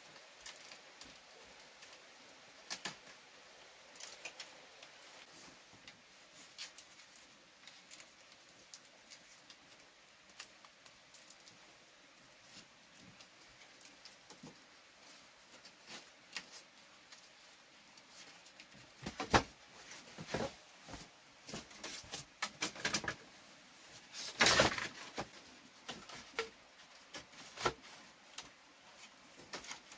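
Scattered small clicks, taps and rustles, sparse at first and busier in the second half, with a longer rustling burst about 24 seconds in.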